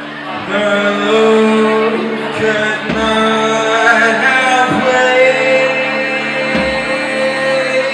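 Grunge rock band playing live: a male singer holds long sung notes into the microphone over sustained low instrumental notes, with a few low drum thumps scattered through.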